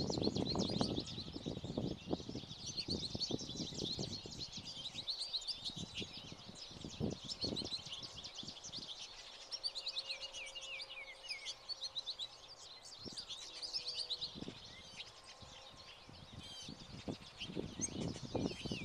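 A flock of American goldfinches twittering and singing in a long run of rapid, high chirps and warbles. Low thuds and rustles come at the start, about seven seconds in, and again near the end.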